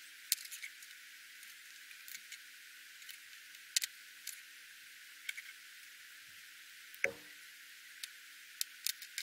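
Small scattered clicks and taps of tiny screws, a hex driver and a drone motor being handled on a wooden tabletop, with one duller knock about seven seconds in and a quick run of clicks near the end.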